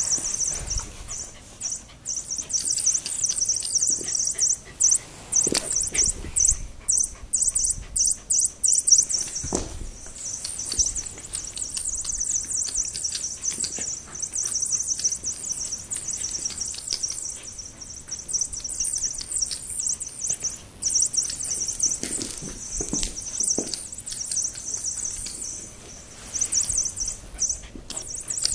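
Squeaky mouse cat toy squeaking in fast, high-pitched runs, almost without a break, as a dog plays with it. A few dull knocks come in among the squeaks.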